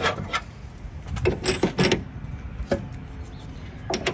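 Knocks and clicks of the spare tire carrier's stabilizer pad and mounting hardware being handled against the van's metal rear door: a few at the start, a quick run of them about one and a half to two seconds in, and one more near the end.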